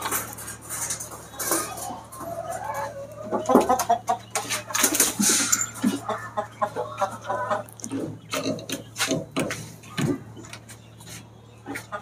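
Domestic desi chickens clucking, with a quick run of clucks about six seconds in and scattered sharp clicks and knocks.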